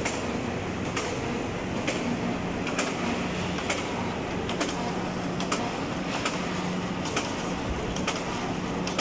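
Chicken cutting machine running: a steady motor hum under the noise of its conveyor belt and rotating blades. A sharp clack repeats about once a second.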